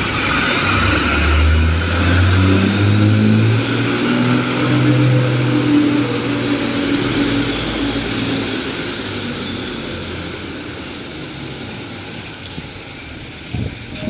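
Diesel engine of a nearby city bus pulling away, its engine note rising as it accelerates, then fading steadily as the bus moves off up the street. A short knock sounds near the end.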